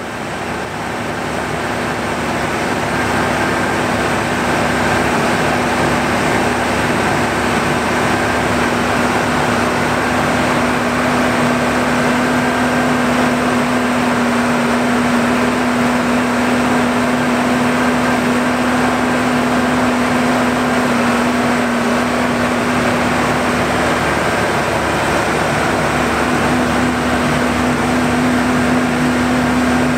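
Diesel tractors and forage-unloading machinery running steadily at the silo as a wagon of chopped alfalfa is unloaded, with a constant low hum throughout. It fades in over the first second or two.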